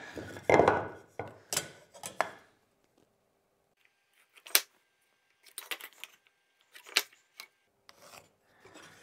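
Marking out by hand: a steel square knocking and sliding on the wood, and a pencil scratching short lines along it. The handling is busiest in the first couple of seconds; after that come a few sharp taps and brief scratches.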